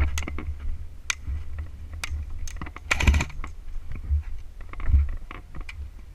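Irregular sharp clicks and knocks over a steady low rumble, with a dense cluster of rapid clicks about three seconds in.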